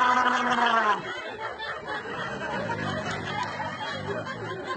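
A person's loud, steady, droning snore ends with a falling pitch about a second in. A quieter stretch of faint, low, chuckle-like sounds follows, and the snore starts up again with a rising pitch at the very end.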